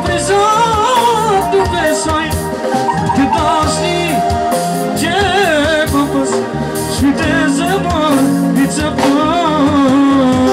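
Live band music: a male singer singing an ornamented, wavering melody into a microphone, backed by keyboard, guitar and drums, with a saxophone.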